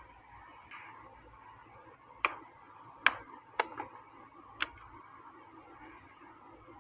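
About five sharp plastic clicks and taps, the loudest about three seconds in, from a hard plastic case of calligraphy pens being handled and opened, over a faint steady hiss.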